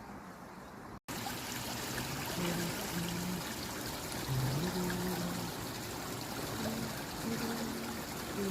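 Valley stream water rushing steadily. The sound cuts out for a moment about a second in and comes back louder.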